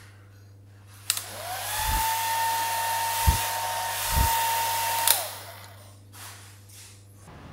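Hand-held hair dryer switched on with a click about a second in. Its motor whine rises quickly to a steady high hum over rushing air. It is switched off with a click about four seconds later and winds down, with a few low thumps while it blows.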